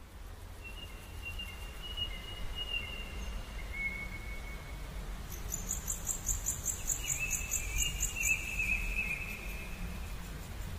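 Outdoor bird and insect calls: thin whistled bird notes in the first few seconds, then a high, rapidly pulsing chirp, about four or five a second, from about halfway in, with a wavering whistle over it, all above a steady low rumble.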